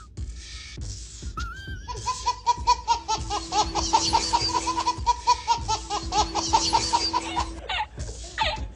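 A baby laughing in a long run of quick, high-pitched bursts, about five a second, then a man laughing near the end.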